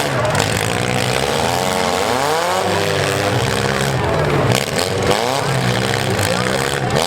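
Several small-car engines running and revving at once, their pitches rising and falling independently, as mini-class demolition derby cars drive in the arena.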